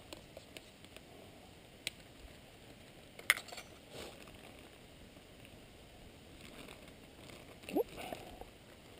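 Small camp cooking gear being handled by hand: a few scattered light clicks and knocks over a quiet background, the sharpest about three seconds in, and a short rising squeak near the end.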